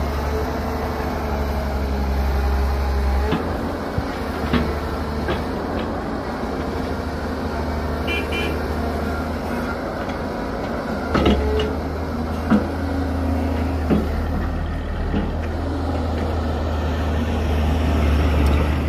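Diesel engines of an excavator and dump truck running, with a deep steady drone that eases off about three seconds in and comes back strongly around eleven seconds. Scattered sharp knocks and clanks throughout, the loudest at around eleven to thirteen seconds, and a brief high squeak about eight seconds in.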